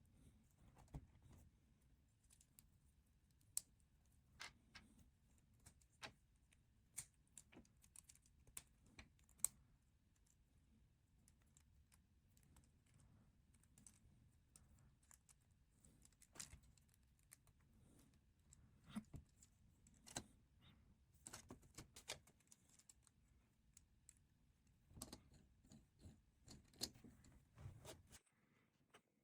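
LEGO bricks clicking and rattling as a small LEGO Formula 1 car is put together by hand: irregular sharp plastic clicks and snaps, some in quick runs and others spaced apart.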